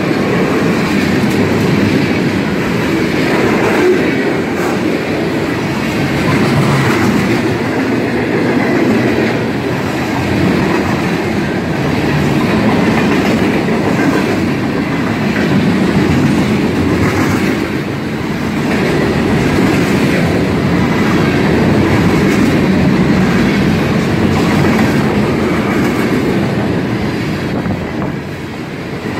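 Freight train of tank cars and boxcars rolling past close by at speed: a steady, loud rumble of steel wheels on rail, with clicks as the wheels cross rail joints.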